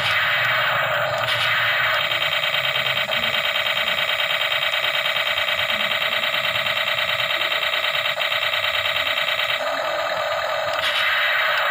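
Electronic sound effects from a battery toy tank's small built-in speaker, thin and tinny: a hissing noise, then from about two seconds in a rapid, evenly pulsing buzz for several seconds, and the hiss again near the end.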